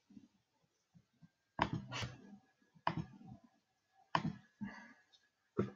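Computer mouse clicking four times, sharp clicks about a second and a half apart, each followed by a brief softer rattle.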